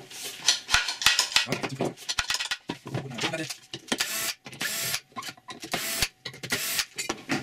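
Cordless drill-driver running in several short bursts to back out the screws of a biscuit joiner's front plate, mixed with clicks and clatter as the metal tool is handled and turned over.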